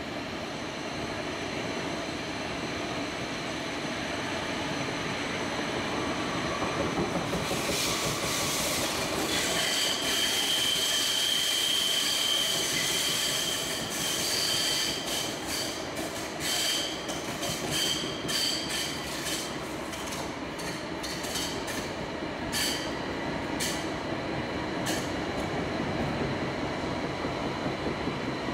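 Bergen light rail tram (Stadler Variobahn) running through a tunnel: a steady rumble of wheels on rail. About a quarter of the way in, a high wheel squeal sets in, and over the second half it is broken up by many quick clicks and squeaks.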